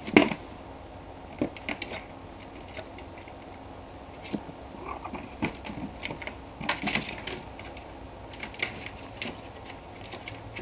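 A kitten's claws and paws scrabbling and knocking on a plastic laundry basket: irregular clicks and scratchy taps, the loudest knock just after the start and small clusters a few seconds apart.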